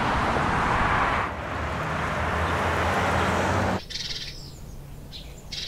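Steady traffic noise with a low hum, cutting off suddenly about four seconds in. Then a quieter car interior with short rasping pulls of a seatbelt's webbing being drawn out of its retractor, twice.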